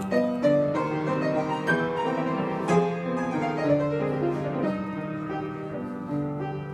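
Solo piano interlude in a Russian romance accompaniment, a flowing run of notes with the singer silent; it grows gradually softer toward the end.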